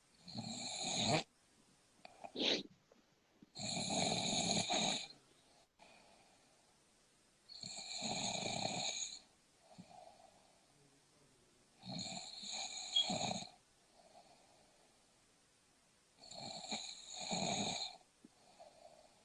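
A sleeping person snoring: five long snores roughly four seconds apart, each lasting about a second and a half, with quieter breathing between them.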